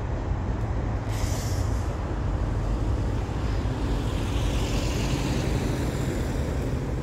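Steady low engine rumble of road vehicles, with a short hiss about a second in.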